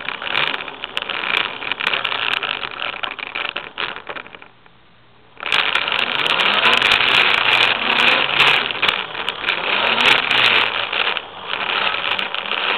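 eZip e400 electric scooter being ridden across a concrete garage floor: a steady rattling ride noise with many small clicks. It drops away for about a second midway, then comes back louder.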